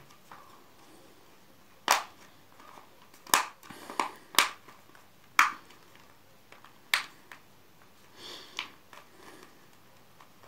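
Plastic snap-fit catches of an HP Folio laptop battery's cover clicking shut one by one as the cover is pressed back onto the casing. There are about six sharp "tik" clicks spread over several seconds, and each one is a catch locking. Faint plastic handling rustle comes near the end.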